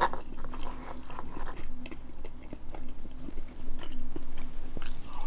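A person chewing and eating, with a metal fork clicking and scraping against a split bamboo-tube bowl in small irregular ticks.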